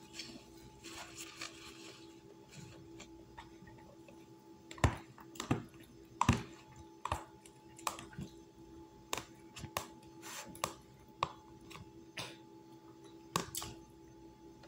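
Eating sounds: a fork tapping and scraping in a plastic food container, in irregular sharp clicks, with a brief rustle near the start and a steady low hum beneath.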